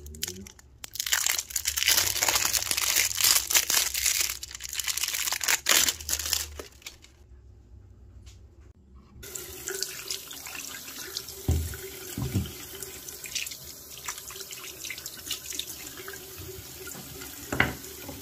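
Clear plastic wrap crinkling as it is peeled off a round bar of soap, stopping about seven seconds in. After a short pause, a bathroom tap runs steadily into a sink while the soap is held under the stream, with a few dull knocks.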